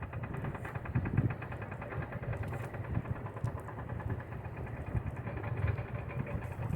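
A motor or engine running steadily, with an even pulsing rhythm.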